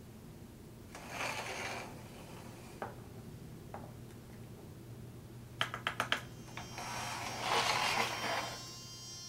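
Sounds from the soundtrack of a screened video artwork: two scraping noises, the second longer and near the end, with a few single clicks and a quick run of about six clicks between them, over a steady low hum.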